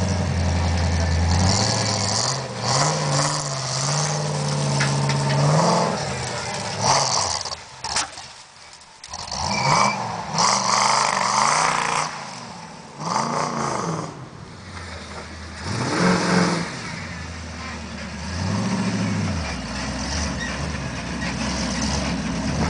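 Off-road Jeep's V8 engine revving up and down repeatedly as it climbs over rough ground, its pitch rising and falling in surges, with a brief lull about eight seconds in.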